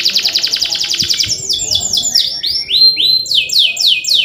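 Male canary singing: a fast rolling trill of rapidly repeated high notes, changing about a second and a half in to slower sweeping, down-slurred chirps, about three to four a second.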